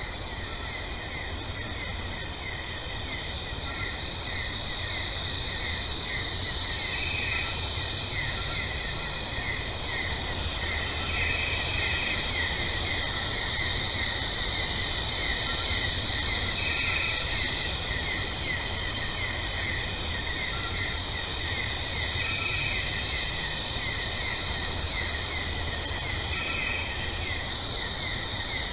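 Outdoor ambience of insects chirping in a fast, even rhythm over a steady hiss and a low rumble.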